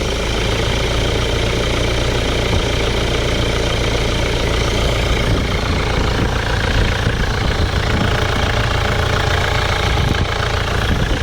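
Mitsubishi Pajero 2.8 four-cylinder turbo-diesel idling steadily, run with its air-filter box removed so the turbo intake is open.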